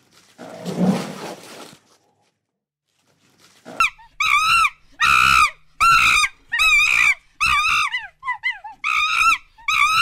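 A short, rough rhinoceros snort, then a dozen short, high, arching monkey calls given about twice a second.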